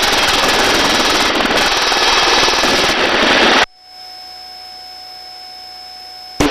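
Helicopter rotor and engine noise, loud and dense, as heard over the crew's open intercom microphone during a hover. It cuts off abruptly after about three and a half seconds, leaving a faint hiss with steady electronic tones, and comes back just before the end.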